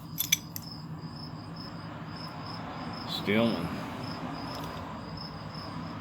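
Insect chirping steadily in a high, quick, regular pulse, with a few sharp clicks of something being handled near the start.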